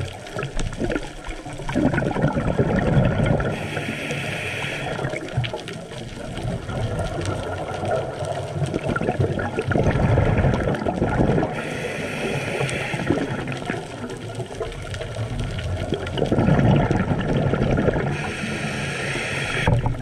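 A diver breathing through a scuba regulator underwater. There are three breath cycles about seven seconds apart, each a gurgling rush of exhaled bubbles followed by the hiss of an inhaled breath.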